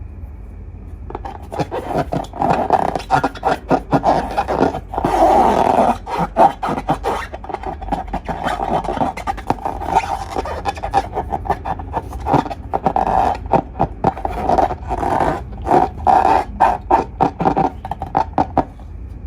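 Slime and long rubber balloons being handled: a long run of rapid crackling and squeaky rubbing that starts about a second in and stops near the end.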